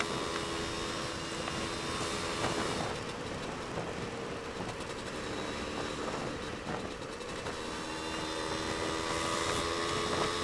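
Suzuki Satria 120R two-stroke single-cylinder motorcycle engine running at a steady speed while riding, over an even rush of wind and road noise.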